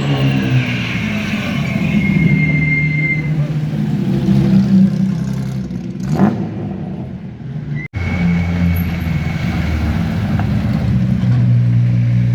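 Engines of classic sports cars driving past at close range, revving and changing pitch as they go by. The sound breaks off for an instant about eight seconds in.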